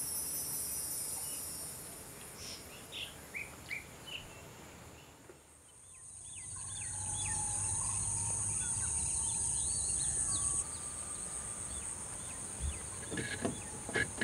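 Garden ambience: birds chirping in short notes over a steady high-pitched insect drone. It fades out about five seconds in, then comes back with a different insect drone and more bird calls. A few light knocks come near the end.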